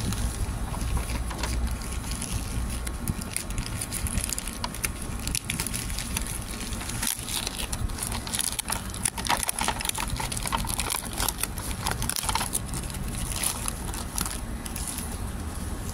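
Plastic courier mailer bag crinkling and rustling in rapid crackles as hands pick at it and pull it open, with a steady low rumble underneath.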